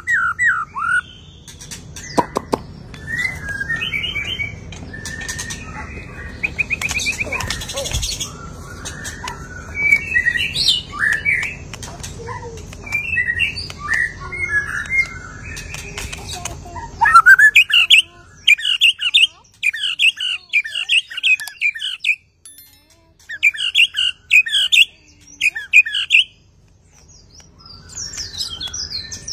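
White-rumped shama (murai batu) singing a varied song of whistles and chirps, a bird just out of its moult showing its full repertoire. About two-thirds of the way in it switches to loud, repeated bursts of rapid notes with short pauses between them.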